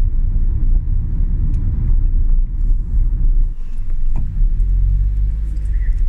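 Road noise inside a moving car's cabin: a steady low rumble of tyres and engine, with a steadier engine hum coming in about four and a half seconds in.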